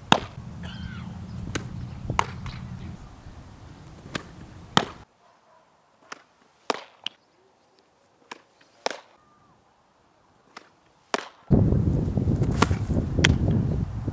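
Sharp leather pops of a softball being pitched into a catcher's mitt, one every second or two. Near the end a loud low rumble of wind on the microphone comes in.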